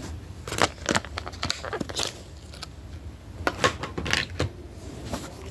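Hands opening a plastic toy package and handling the action figure: irregular plastic clicks, scrapes and rustles.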